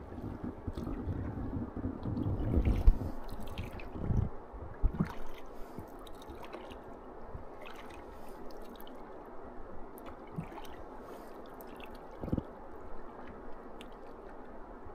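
Raft oars dipping and pulling through calm river water, with water dripping and gurgling off the blades and occasional knocks. A low rumble for the first three seconds, then quieter dripping and splashing.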